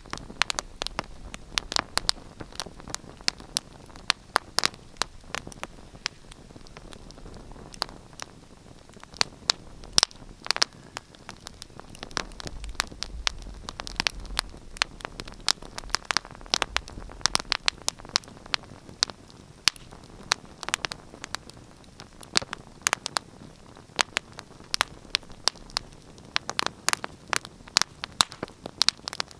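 Fire crackling in a fireplace: many irregular sharp pops and snaps over a soft steady hiss.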